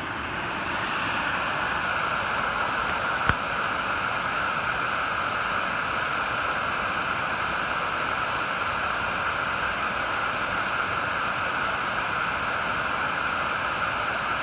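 Steady rush of fast-running water swollen by three days of rain. A single short click about three seconds in.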